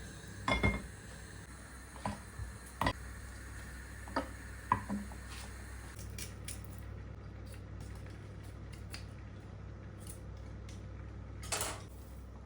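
Dishes and cutlery clinking and being set down in a kitchen: several sharp knocks in the first five seconds, then a short scrape near the end, over a steady low hum.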